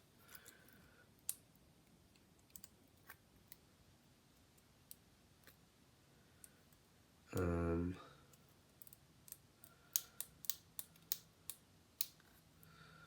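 Scattered small, sharp clicks and taps of hand tools prying at the internal parts of an iPod Nano 5th generation, coming faster in the last few seconds. A short hummed vocal sound about seven and a half seconds in.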